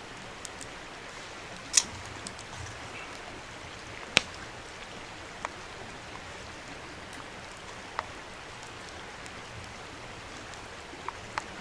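Steady rush of river water, with a few sharp clicks scattered through it, the loudest about two and four seconds in.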